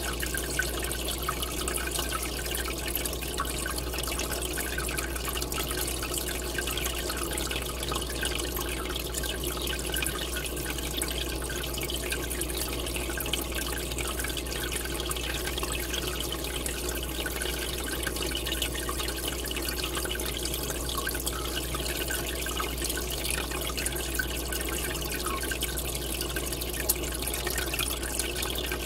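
Aquarium air line bubbling: a steady stream of air bubbles rising and breaking at the water surface, heard as continuous splashing and trickling over a steady low hum.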